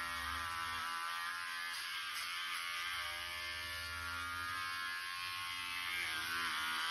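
Electric hair clippers running with a steady buzz, trimming the hair at the back of the neck; the pitch wavers slightly now and then.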